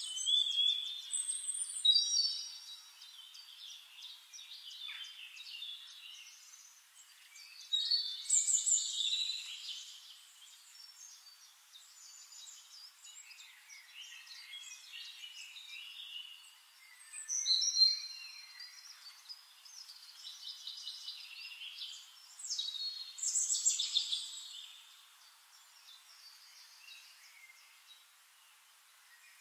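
Songbirds singing in bursts of chirps and trills, several loud phrases a few seconds apart with fainter chatter between them.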